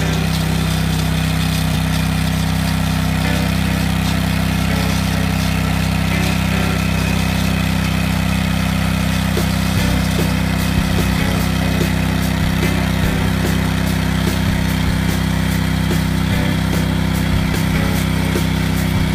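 Engine of a small tracked hedge-cutting machine running at a steady speed while its vertical cutter bar trims the hedge. From about ten seconds in, a rapid ticking of about three a second joins the engine.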